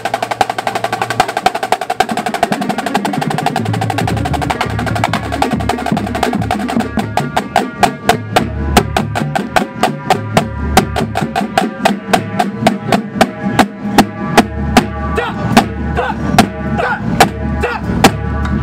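Drum and bugle corps drum line playing a warm-up exercise: fast snare drum strokes and rolls with tenor drums, and tuned bass drums entering about four seconds in with pitched notes. The playing stops at the very end.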